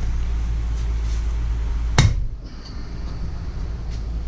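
A single sharp metallic tap about two seconds in, a steel tool knocking against the hydraulic ram's seal gland clamped in a bench vise, with a brief ring after it, over a steady low hum.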